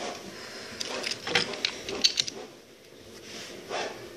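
Clicks and taps of a toy train's body being handled and set down on a table: a quick cluster of sharp clicks about a second in, then a softer knock near the end.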